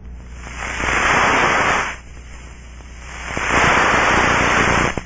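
Air leak in an aircraft pneumatic duct heard through an Ultraprobe ultrasonic detector tuned to about 40 kHz: a rushing hiss that swells up and fades away twice, each time for about one and a half seconds.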